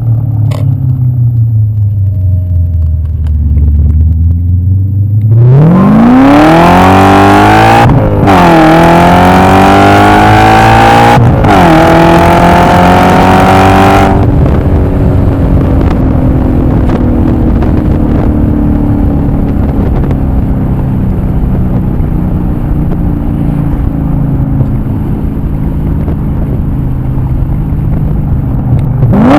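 E39 BMW M5's V8 engine: revs falling at first, then a hard acceleration from about five seconds in, the revs climbing with two quick upshifts, before lifting off around halfway and slowly winding down as the car coasts.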